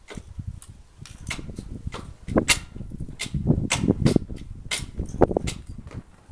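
Irregular sharp clicks and knocks with dull low thuds, louder and closer together in the second half.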